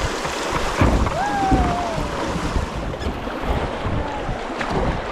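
Wind buffeting the microphone over the rush of river water around a kayak, with a knock about a second in and a short falling tone just after.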